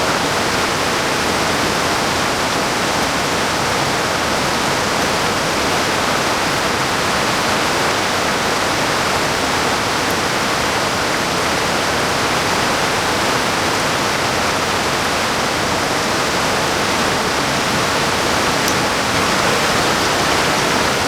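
Steady rush of water from the cascades of Strickland Falls close by.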